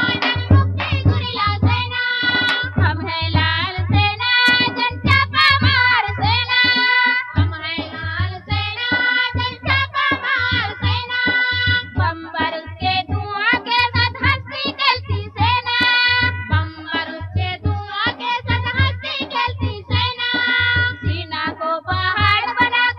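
A song with singing over a steady, pulsing bass beat.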